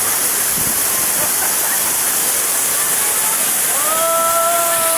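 Küp Waterfall's water falling, a steady rushing. Near the end a person's voice holds one long, even note for about two seconds.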